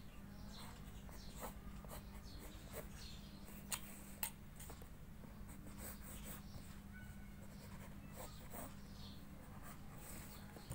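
Graphite pencil scratching on paper in short drawing and shading strokes, with two sharper ticks a little under four seconds in and just after four seconds, over a low steady hum.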